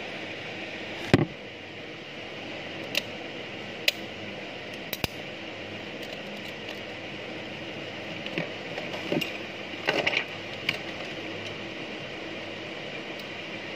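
Scattered light clicks and clinks of small hand tools, tweezers and multimeter probes, handled against a phone circuit board and workbench, the loudest a sharp knock about a second in, over a steady background hiss.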